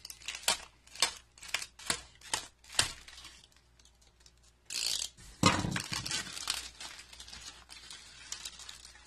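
A run of sharp clicks over the first three seconds, then a short hiss and a loud rustling crinkle of plastic bagging as a utility knife cuts it and the pitcher plants are pulled free.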